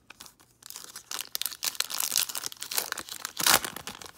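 A foil trading-card pack wrapper being torn open and crinkled by hand, a dense crackling that builds up and is loudest near the end.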